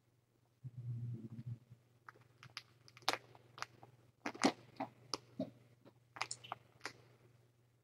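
A kitten chewing crunchy solid food: an irregular run of small crunches, a few a second.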